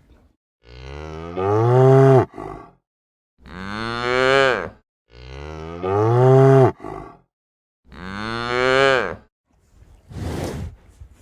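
Cow mooing: four long, loud moos about a second and a half each, the same pair of calls heard twice. A short noisy burst comes near the end.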